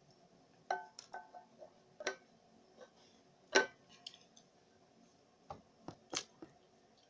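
Several light knocks and clinks of hard objects being handled, scattered irregularly with the loudest about three and a half seconds in, some leaving a faint ringing.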